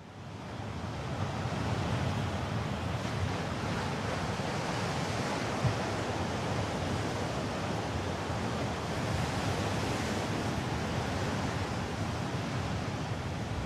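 Ocean waves and surf, a steady wash of noise that fades in over the first second or so.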